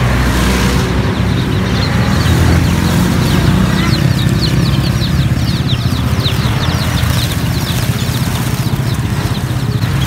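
A cage full of munias chirping: many quick high peeps, each sliding down in pitch, crowding in from a couple of seconds in. Under them a steady low engine rumble is the loudest sound.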